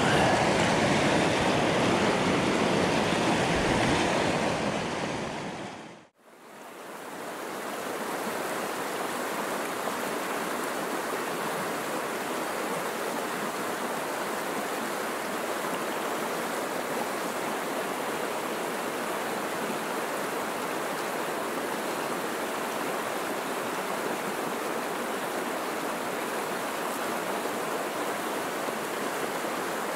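River rapids rushing: a loud close-up rush of current over rocks that fades out about six seconds in, then a steady, even rush of the river.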